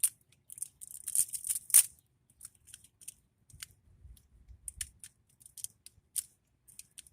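Plastic packaging being pulled off a new pair of cutters: a dense run of crinkling clicks about a second in, the loudest near two seconds, then scattered lighter clicks and rustles.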